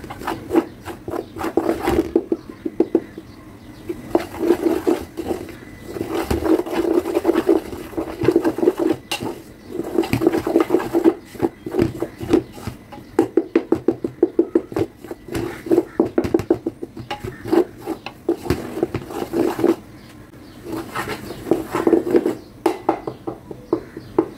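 A spatula scraping and stirring through whole wheat flour roasting in a large steel pot, in quick repeated strokes against the pot that come in runs of a few seconds with short pauses between.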